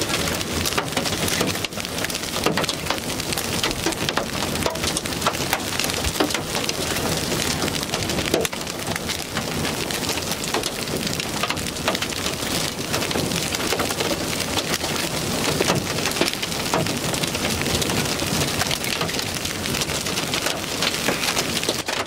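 Quarter-size hailstones and heavy rain pelting the vehicle, a dense, continuous clatter of sharp hits.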